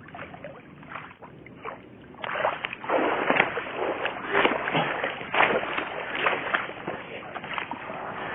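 Water splashing and sloshing as a man swims, louder from about two seconds in, with repeated splashes from his strokes roughly every half second.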